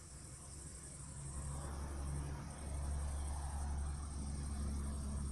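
Crickets chirping steadily over the low, even hum of honeybees in the hives at night. The hum grows a little louder partway through. The bees are busy working a strong nectar flow.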